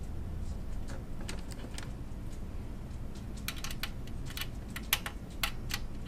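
A run of small sharp clicks and taps of metal tools and parts being handled, thickest in the second half, with one louder tap about five seconds in, over the steady low hum of an air conditioner.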